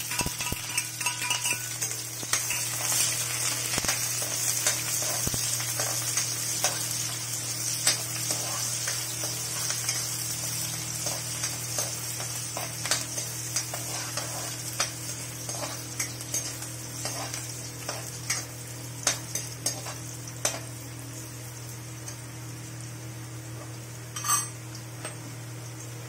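Chopped onion sizzling in hot oil in a steel kadhai, stirred with a steel ladle that clicks and scrapes against the pan. The sizzle is loudest at first and slowly dies down.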